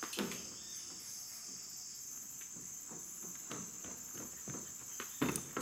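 A steady, high-pitched chorus of insects, with footsteps knocking on a wooden boardwalk; the loudest steps come about five seconds in.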